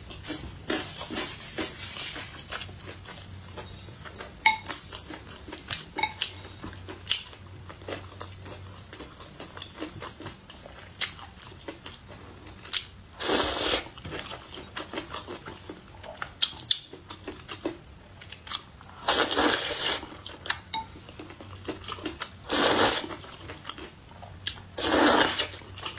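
Close-up eating of rice noodles in broth: steady wet chewing clicks, then four loud slurps of noodles, one about halfway through and three more toward the end.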